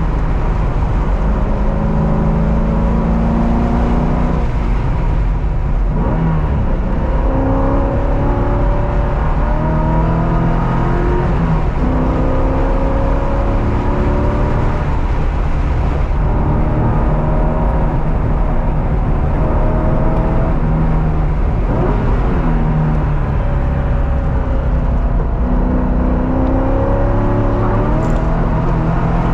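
Car engine lapping a race circuit, pitch climbing repeatedly under acceleration and dropping back sharply at each shift or lift, over constant road and wind noise.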